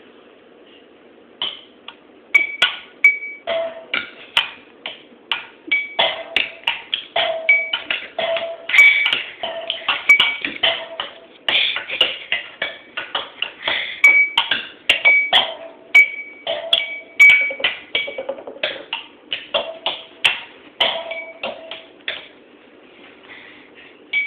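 A row of drinking cups, some holding dirt or water, tapped with a pair of thin sticks in quick, uneven runs. Each cup gives a short ringing ping at its own pitch. The tapping starts about a second and a half in.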